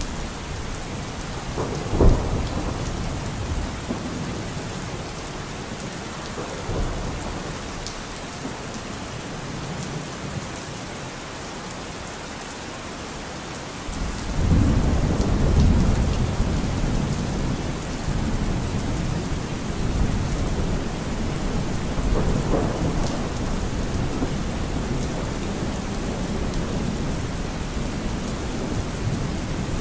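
Steady rain with thunder: a sharp clap about two seconds in, then a long low rumble that swells about halfway through and fades slowly.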